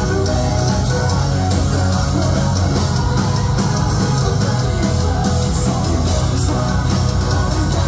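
A live metalcore band playing at full volume: distorted guitars and drums over heavy bass, with vocalists singing into microphones, heard from within the crowd.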